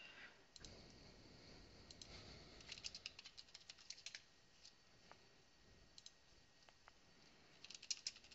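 Faint computer keyboard typing: a quick run of keystrokes about two to four seconds in and another near the end, with a few single clicks between.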